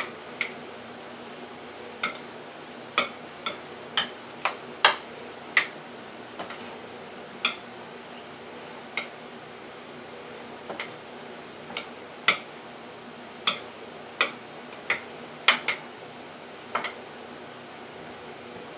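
A spoon clicking against a ceramic bowl about twenty times, at an uneven pace, as rotini pasta and pieces of cheese are stirred together.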